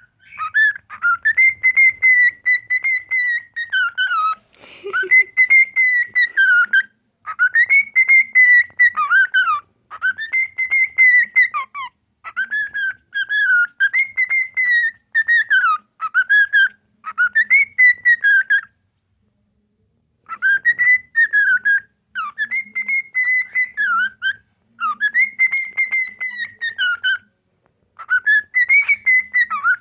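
Male cockatiel singing close to the microphone: a string of whistled phrases that rise and fall, each a second or three long with short breaks between, and a pause of about a second and a half just past the middle.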